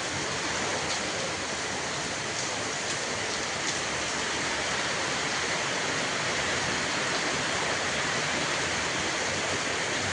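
Heavy rain and running water: a steady, even rush with a few faint ticks.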